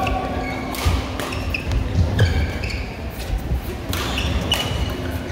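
Badminton doubles rally: rackets striking the shuttlecock with sharp smacks every second or so, with shoes squeaking and thudding on the court mat between hits.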